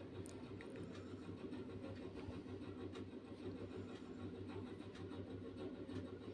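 Faint scraping of a spatula stirring turmeric paste as it roasts in oil in a heavy kadhai, over a steady low hum.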